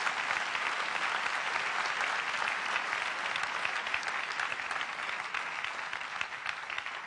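Large audience applauding, a dense steady clapping that begins to die away near the end.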